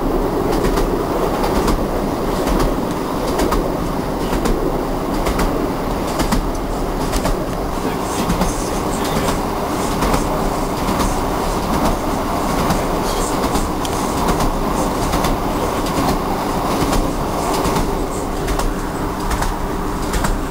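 Train wheels running over jointed rail: a steady rolling rumble, broken by repeated sharp clicks as the wheels cross the rail joints.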